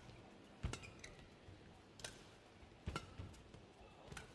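Badminton rackets striking the shuttlecock back and forth in a rally: a handful of sharp, faint hits roughly a second apart.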